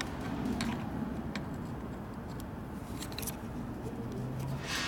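Open-end wrench working the nut on a motorcycle battery cable terminal: a few light, scattered metallic ticks, then a brief rustle near the end.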